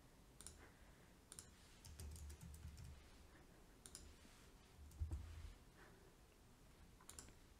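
Faint clicks of a computer mouse and keyboard, a handful of scattered clicks, with a soft low bump about five seconds in.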